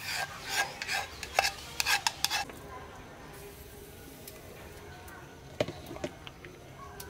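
A ladle and an earthenware bowl scraping and clinking against cookware while soup is dished up: a quick run of scrapes and knocks for the first two and a half seconds, then a few lighter knocks near the end.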